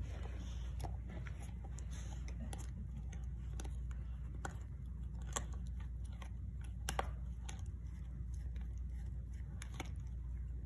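A dog gnawing a hard chew stick held between its paws: irregular crunching clicks of teeth on the chew, over a low steady hum.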